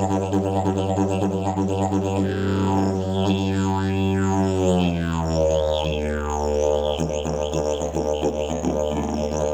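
Hemp-canvas slide didgeridoo playing a continuous low drone, with overtones sweeping up and down as the mouth shape changes. The drone's pitch drops a little about five seconds in, and a pulsing rhythm follows.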